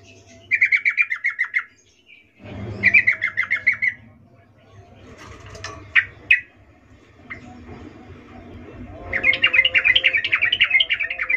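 Yellow-vented bulbul (trucukan) giving rapid chattering calls: two short bursts in the first four seconds, a few sharp single notes around the middle, and a longer chatter near the end. It is a female's mating call, the kind bird keepers play to rouse male bulbuls into song.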